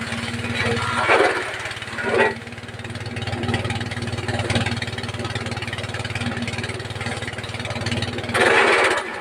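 A 5.5 hp diesel engine running steadily, driving a forage chopper, with short loud bursts of chopping as feed goes through the blades about a second in, just after two seconds and near the end.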